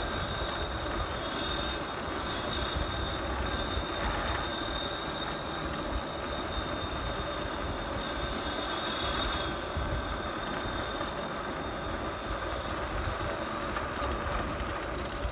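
Steady wind and road noise from riding along a street: rumble on the microphone with tyre noise and a faint steady high whine that drops out about two-thirds of the way through.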